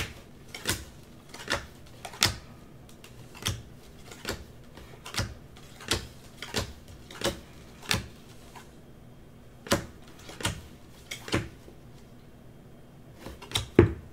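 Football trading cards being flipped through one at a time from a hand-held stack, each card making a short crisp click, about one every three-quarters of a second with a couple of brief pauses.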